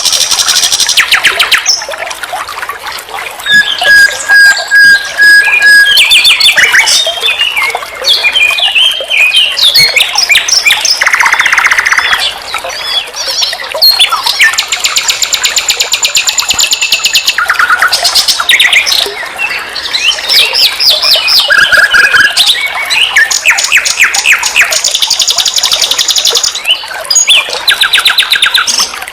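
Common nightingale singing a loud, varied song: fast trills and rattles, then a run of repeated pure whistled notes about four seconds in, with phrase after phrase separated by short pauses.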